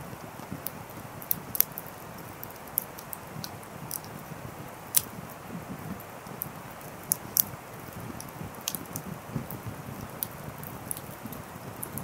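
Wood fire burning, logs crackling with irregular sharp pops over a steady hiss of flame.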